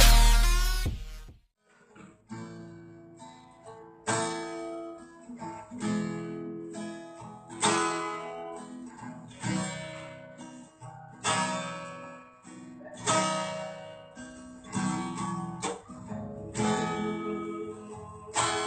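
Acoustic guitar strummed, one chord about every two seconds, each left to ring out, as an instrumental lead-in. A loud electronic sound fades out during the first second and a half.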